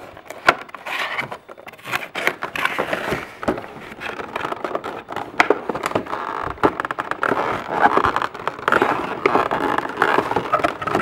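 A cardboard display box with a clear plastic window being torn open and handled: irregular crinkling, scraping and sharp clicks.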